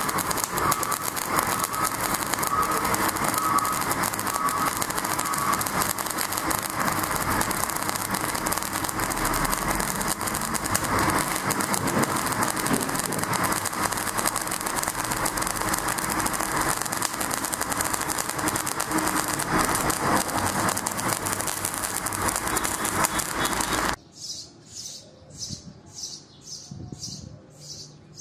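MIG welding arc laying a bead on a steel butt joint, a steady dense crackle that stops abruptly about 24 seconds in. It is followed by faint, evenly repeated chirps, about two to three a second.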